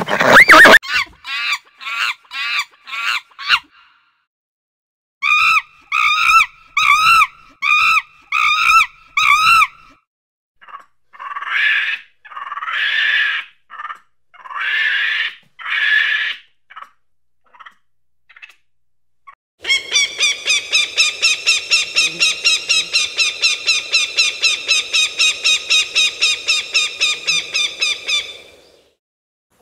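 Animal calls one after another: a horse's whinny ending at the start, then short repeated calls, then harsh screeching calls from monkeys. Near the end comes a long run of fast, evenly repeated calls, about nine seconds long, from a hawk.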